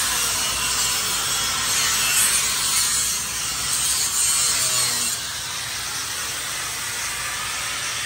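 Steady rasping, scraping noise of a tool at work, louder for about the first five seconds, then easing off a little.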